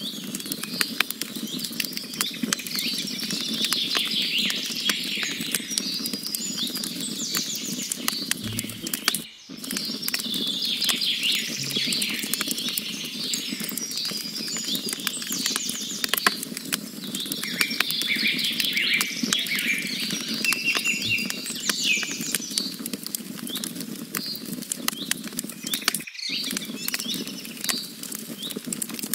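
Wood campfire crackling with frequent sharp pops and snaps, with birds chirping and trilling in the background. The sound cuts out for an instant twice, about nine seconds in and near the end.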